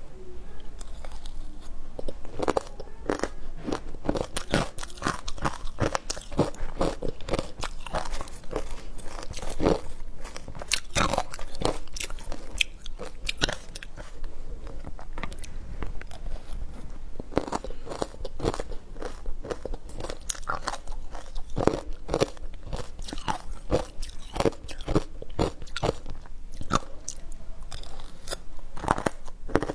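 Matcha-powdered shaved ice being bitten and chewed: dense, sharp crunching, several crunches a second, with no pause.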